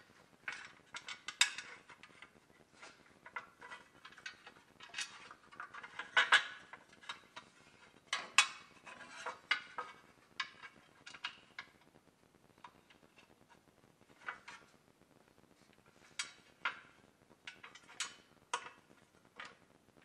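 Sheet-metal transmission heat shield of a 2012 Chevrolet Silverado 1500 being handled and worked into place by hand, clinking against the surrounding metal in irregular light metallic clicks and taps.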